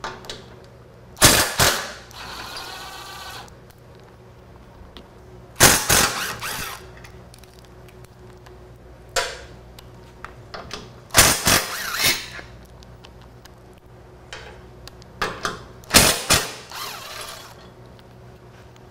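Cordless power driver spinning a 9/16 socket in four short bursts, backing frame bolts out of a motorcycle's seat subframe, with light metal clicks and rattles between the bursts.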